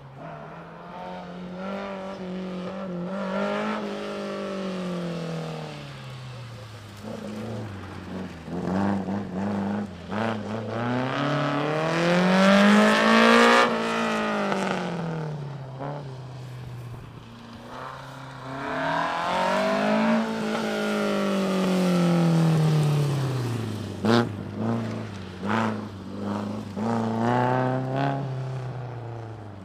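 Lotus Elan's twin-cam four-cylinder engine revving up and down as the car accelerates and slows between cones, in several long rising and falling sweeps of pitch. It is loudest about halfway through as the car passes close, with short quick throttle blips in the last few seconds.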